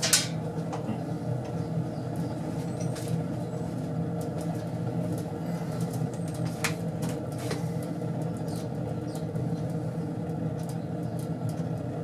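Homemade wood-pellet rocket stove space heater burning with a steady low roar, with scattered sharp clicks and crackles, one louder just at the start.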